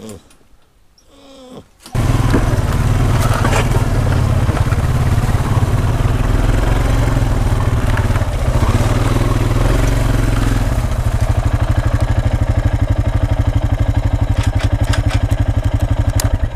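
A motor vehicle engine running close to the microphone. It cuts in suddenly about two seconds in and runs steadily, with a fast, even pulsing in its low note during the second half, then stops right at the end.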